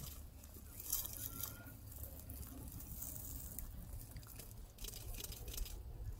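Cheetah feeding on a carcass: faint crunching and tearing of meat in a few short spells, over a low steady rumble.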